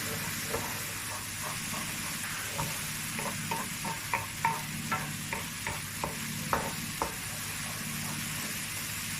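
Risotto rice and wine sizzling in a skillet as the wine boils off, while a utensil stirs it, knocking against the pan in a run of quick taps from about two to seven seconds in.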